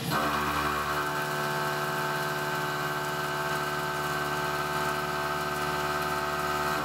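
Tormach PCNC 1100 mill facing 1018 low carbon steel with a 38 mm carbide-insert face mill. The cutter bites into the workpiece at the start, with a step up in level. It then cuts steadily, giving a steady whine made of several tones.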